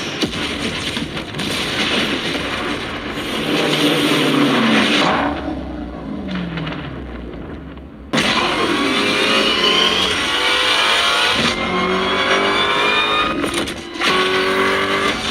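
Racing car engines revving and accelerating, the pitch climbing and falling back as the cars go through gear changes. About eight seconds in, the sound cuts suddenly to a new, louder stretch of hard acceleration.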